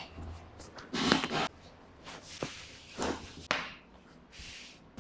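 Handling noises of a chiropractic treatment: a few short knocks and rustles, with a sharp click about three and a half seconds in.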